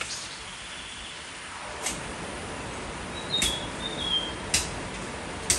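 Spring water trickling steadily, with a few sharp clicks and a short high chirping call about three and a half seconds in.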